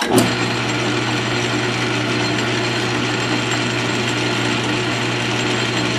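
South Bend 13-inch metal lathe switched on and running steadily, its spindle turning a small steel shaft in a collet chuck. It starts suddenly at the very beginning, then holds a steady low hum with a faint high whine from the motor and drive.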